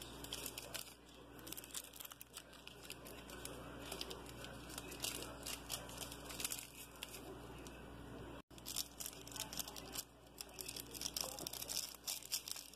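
Small sazón seasoning sachet crinkling and tearing in the hands as it is opened and shaken over raw meat: a faint, irregular run of crackles and rustles.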